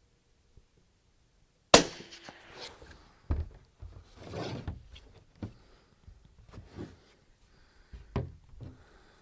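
A single rifle shot from a scoped Mossberg MVP bolt-action rifle with a suppressor on the muzzle, sharp and loud, about two seconds in. It is followed by a series of metallic clicks and knocks as the bolt is worked and the rifle handled.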